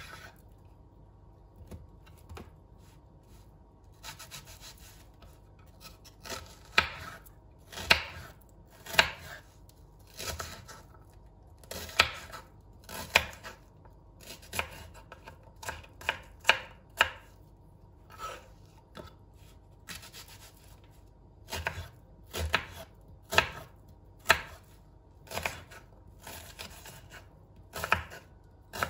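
A kitchen knife chopping on a cutting board in separate, unhurried strokes, about one a second. It is faint and sparse for the first few seconds, then the strokes come steadily.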